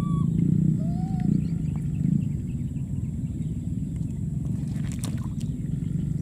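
Baby monkey giving two short rising-then-falling coo calls, one at the start and one about a second in, over a steady low rumble. A brief crackle comes about five seconds in.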